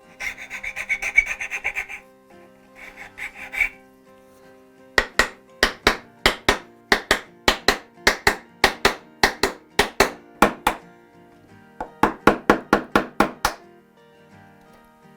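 Hand tools working wood: a scraping, rasping run of strokes at the start and again briefly at about three seconds, then a long series of sharp taps on wood about two a second, and a quicker run of taps later on. Steady background music plays underneath.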